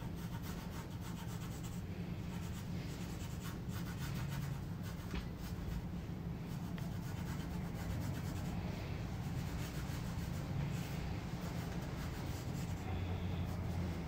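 Yellow wooden pencil sketching on drawing paper: repeated light strokes of graphite scratching and rubbing across the sheet, over a steady low hum.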